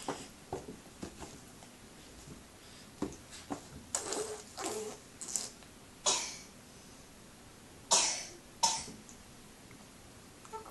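A nine-month-old baby making a silly, cough-like throaty sound over and over in a string of short, breathy bursts, the loudest about six and eight seconds in.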